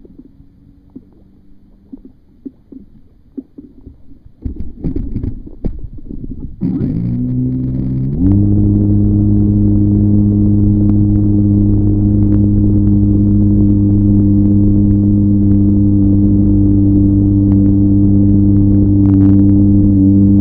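A few knocks, then an RC plane's motor and propeller start about seven seconds in, spin up quickly over a second or so, and run loud and steady at high throttle, heard up close from a camera taped to the airframe.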